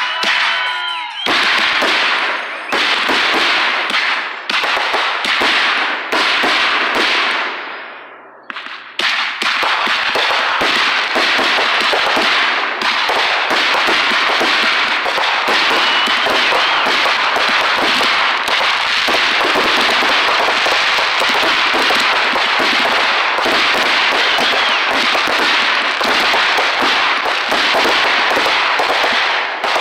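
Aerial fireworks going off: whistles rising in pitch in the first second, then a dense, rapid crackle and popping of bursting stars. There is a short lull about eight seconds in before the crackling picks up again.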